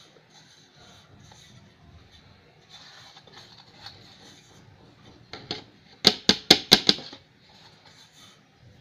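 A quick run of five or six sharp taps in about a second, a little past the middle, over faint rustling handling noise.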